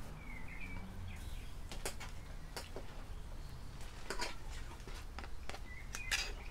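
Cutlery clinking against a plate while pasta salad is served, a few light clicks scattered through, loudest about four and six seconds in. A bird chirps briefly near the start and again near the end, over a steady low hum.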